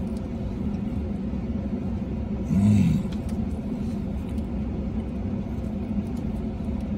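Steady low rumble of a vehicle running, heard inside its cabin. About two and a half seconds in, a short hummed "mm" rises and falls in pitch from the man as he chews.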